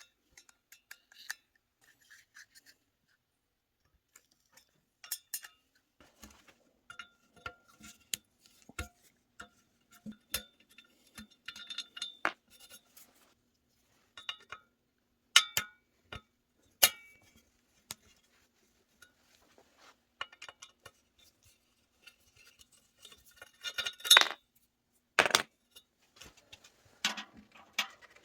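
Metal parts and hand tools clinking and tapping in irregular sharp clicks, some ringing briefly. The louder knocks come in the middle and near the end, over a faint steady hum.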